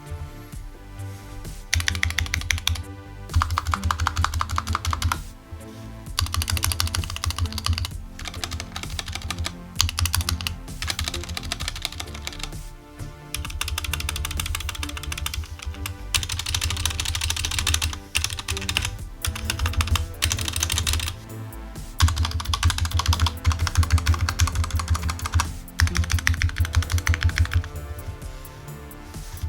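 Typing on a compact mechanical keyboard with stock switches and keycaps: rapid key clacks in runs of a few seconds at a time, with short pauses between runs, over background music.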